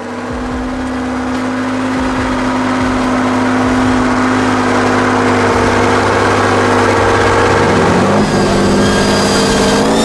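Vehicle engine running steadily and growing louder, its pitch dipping briefly near the end and then climbing as it revs.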